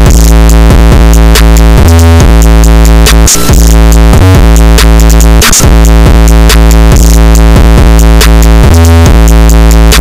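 Very loud electronic music: held synthesizer chords and bass over a drum-machine beat.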